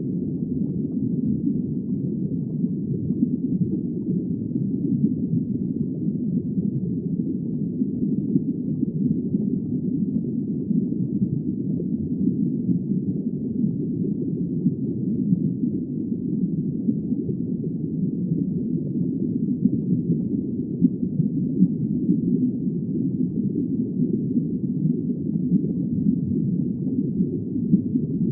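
Steady, muffled underwater ambience: a low, even wash of water noise with no high sounds and no distinct calls.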